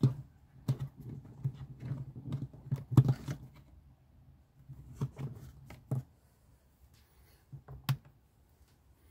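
Sharp clicks and light knocks of a hand pressing switches and buttons on a 12-volt electrical panel, a dozen or so in the first six seconds and two more near the eighth second.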